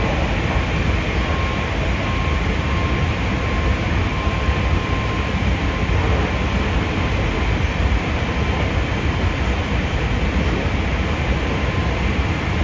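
Running noise of a Hankyu 5300-series electric train heard inside the passenger car: a steady rumble of wheels on rail. A faint high whine fades out about halfway through.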